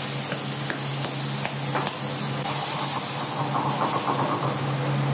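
Thin sauce bubbling and hissing in a wok over a gas flame turned up high, over a steady low hum. A few light ticks come in the first two seconds.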